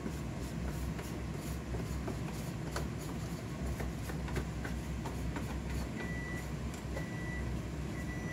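Leftover stew being scraped out of a plastic container into a frying pan with a wooden spoon, making scattered light taps and clicks over a steady low hum. From about six seconds in, a short high beep repeats about once a second.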